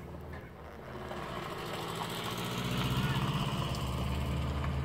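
A boat engine running close by, growing louder over the first three seconds and then holding steady with a fast, even pulse.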